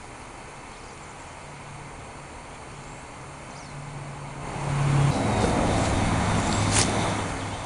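A motor vehicle passing by: a low engine hum grows louder over about five seconds, drops in pitch as it goes past, and fades near the end.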